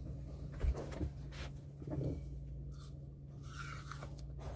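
Close-up eating sounds: food handled by hand and chewed, soft clicks and rustles over a steady low hum, with one low thump under a second in.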